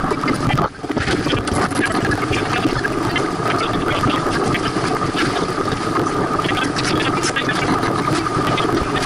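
Steady rushing noise of wind and water along a sailboat's hull as it sails under way, with a brief drop-out just under a second in.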